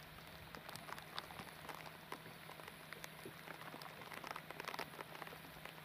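Faint, irregular patter of small water drops and light splashes, over a low steady hum.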